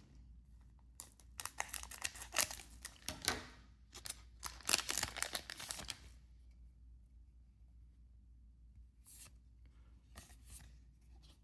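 A foil card-game booster pack being torn open: a run of crinkly tearing and rustling for about five seconds, then a few faint clicks of cards being handled near the end.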